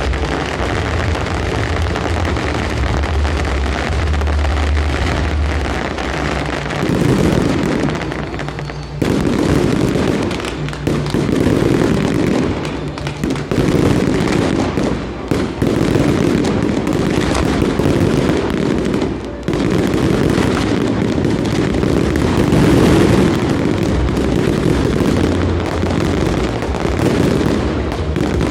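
Fireworks display going off in a dense, continuous barrage of booms and crackling bursts, with brief lulls twice.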